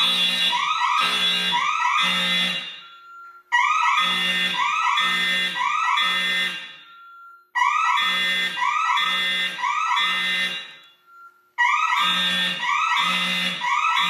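Fire alarm horns sounding in the temporal-three evacuation pattern: three pulses, a pause, repeating about every four seconds, with a faint steady tone between the groups. The fire alarm system is in full alarm after a manual pull station was activated.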